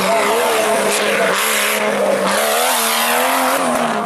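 Off-road 4x4 engine revving hard, its pitch rising and falling as the throttle is worked, over a loud rushing noise of spinning tyres.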